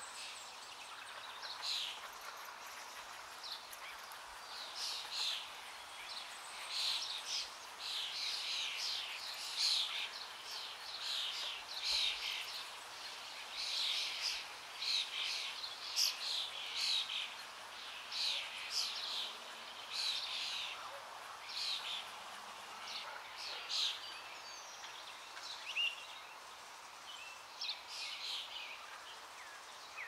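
Babblers calling: short, high chirps in quick clusters, repeating irregularly every second or two over a faint steady outdoor hiss.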